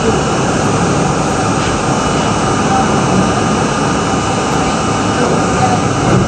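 R32 subway car running at speed through a tunnel: a loud, steady roar of wheels on rail and running gear, with a faint steady high whine. Heard from inside the moving car.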